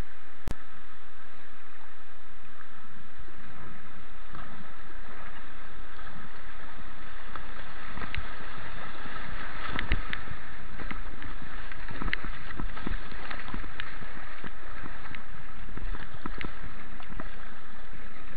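White water rushing around a kayak being paddled through a grade 1 rapid, with many sharp splashes and knocks against the boat and paddle from about three seconds in, thickest around the middle. A single sharp click just after the start.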